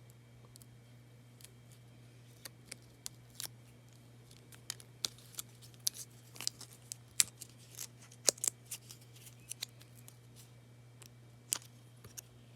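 Hand-crafting noises from paper pieces and foam adhesive squares being handled and stuck down: irregular sharp clicks and ticks, sparse at first and coming thicker from about four seconds in, over a steady low hum.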